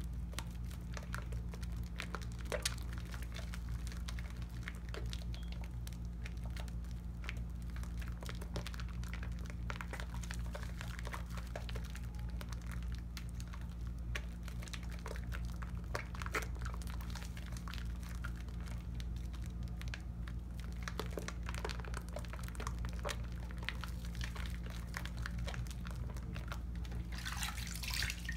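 Wet hands lathering a Tone cocoa butter bar soap: a steady run of squelching and fine crackling clicks from the foam. A louder splashing swish comes near the end. A steady low hum sits underneath.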